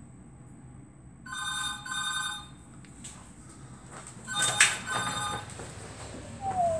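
Hotel room telephone ringing in a double ring, two short rings together, then ringing again about four seconds in. The loudest sound is a sharp click about 4.5 s in as the room door is unlatched, followed near the end by a short falling squeak as the door swings open.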